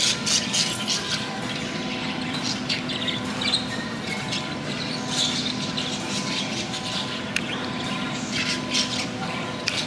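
Pet-store ambience: a steady hum and hiss with faint tones, like tank pumps and filters, and scattered high chirps throughout.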